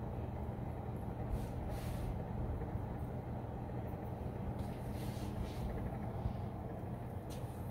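Steady low mechanical hum of shop machinery, with a few faint scrapes of a straight razor along a beard line.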